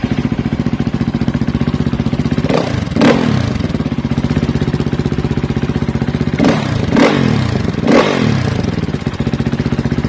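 2017 KTM 450 EXC-F single-cylinder four-stroke engine running through an Akrapovic shorty exhaust. It idles steadily with five quick throttle blips: two about two and a half to three seconds in, and three more between about six and a half and eight seconds.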